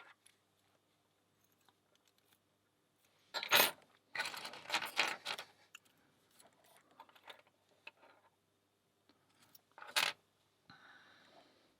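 Small metal tools and lock parts clinking and rattling as they are handled and set down, with a sharp clink about three and a half seconds in, a burst of rattling just after, another sharp clink near the end and a short scrape.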